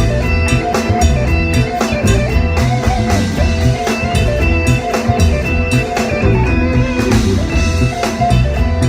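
Isan phin, a plucked lute, playing a fast instrumental melody over a band with a steady low drum and bass beat.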